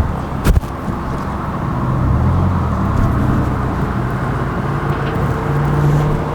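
Car driving: steady engine and road noise, with a sharp knock about half a second in.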